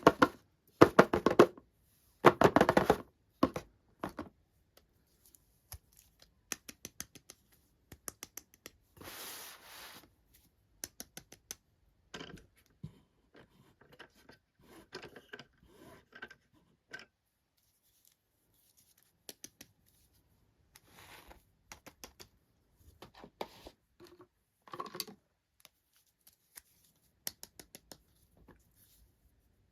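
Toy packaging being handled and opened: loud crinkling and tearing in the first few seconds, then scattered small clicks, taps and scratches.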